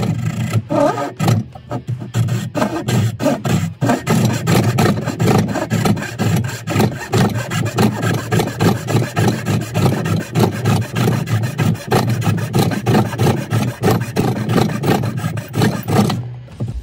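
Hand back saw cutting down into the end of a wooden board with quick, even back-and-forth strokes, cutting away the waste for a lap joint. The strokes stop shortly before the end.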